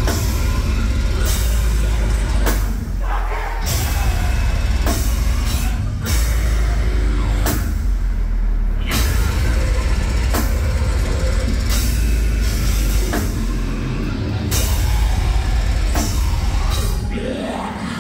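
Deathcore band playing live at full volume: heavy distorted guitars and bass under pounding drums with repeated cymbal crashes, the low end dropping out briefly twice in stop-start breaks.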